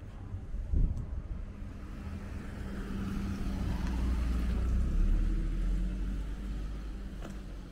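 A motor vehicle drives past, its engine and tyre noise building to a peak about five seconds in and then fading away. A brief low thump comes about a second in.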